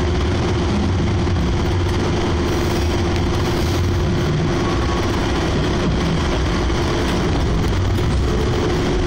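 Hanshin Mukogawa Line electric train running along the track at a steady speed, heard from inside the front car: an even rumble of wheels and running gear with a constant hum.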